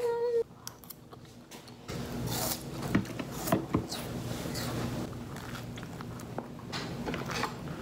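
Close-up biting and chewing of crunchy avocado toast, a run of crackly crunches from about two seconds in. Before that, a steady hummed note cuts off about half a second in.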